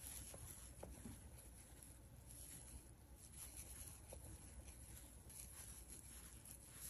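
Near silence: faint rustling of yarn and a few soft ticks from a crochet hook working double crochet stitches.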